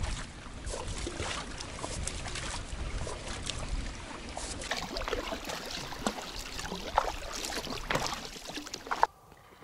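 Water sloshing and splashing as a man wades through shallow marsh water among reeds, pushing a small metal boat, with scattered knocks and splashes throughout.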